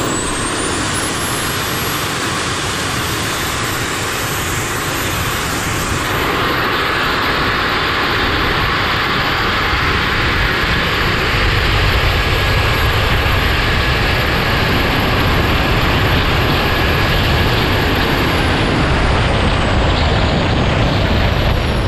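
Kingtech K320 G4+ model turbojet running hard on a bicycle: a thin high turbine whine that rises in pitch as it spools up in the first second or so, then holds steady. Rushing wind noise builds as the bike speeds past 50 mph, and over the last few seconds the whine falls in pitch as the throttle is let off.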